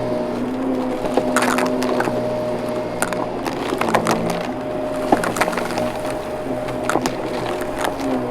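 Vacuum cleaner running with a steady motor hum, with scattered sharp clicks and crackles over it. The hum's pitch dips briefly about four seconds in.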